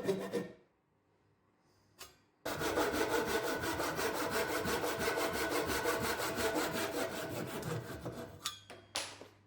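Hand saw cutting dovetails in pine with rapid, even strokes. A brief burst of sawing at the start is followed by a short pause with a single click, then about six seconds of continuous sawing, and a few light knocks near the end.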